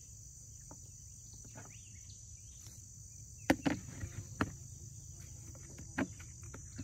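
Steady high chirring of insects in the grass, with several sharp clicks and knocks from handling gear midway through and again near the end.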